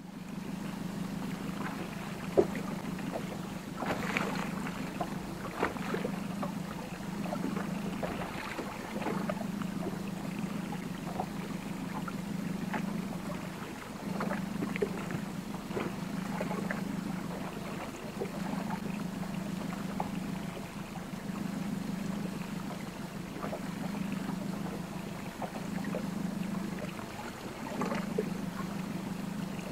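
Ambient sound aboard a small fishing boat at sea: a steady low hum that dips briefly every few seconds, with scattered light clicks and knocks.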